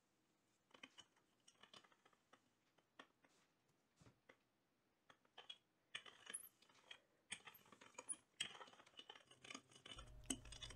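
Faint, irregular light taps and clicks of soft bread dough being handled and pressed on a work surface, coming more often in the second half.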